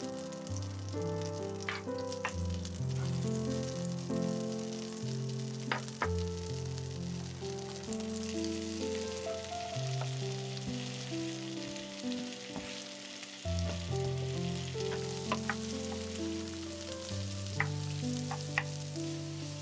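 Butter sizzling in a nonstick frying pan, then sliced onions tipped in and stirred with a wooden spatula over medium-low heat, the sizzle growing louder, with a few light taps of the spatula. Soft background music with held notes plays underneath.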